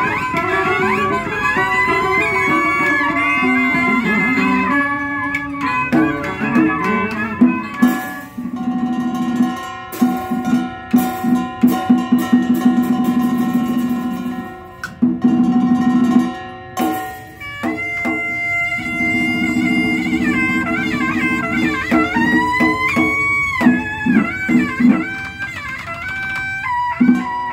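Vietnamese Cao Đài ritual ensemble (nhạc lễ) playing an instrumental piece: plucked lutes and a melody that slides between notes over a pulsing drum. In the middle a stretch of rapid, sharp percussion strikes joins in.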